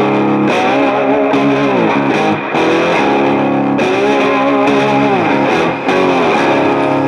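Background music led by a distorted electric guitar, its notes bending in pitch.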